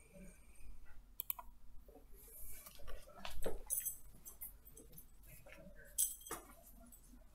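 A computer mouse clicking, among other light, irregular clicks and small knocks.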